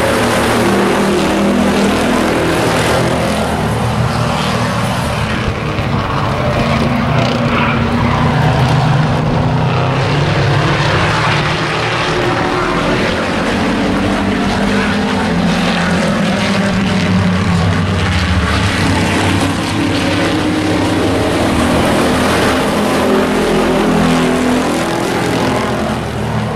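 A pack of hobby-class stock pickup trucks racing around an oval track, many engines running hard together, their pitch rising and falling as the trucks pass.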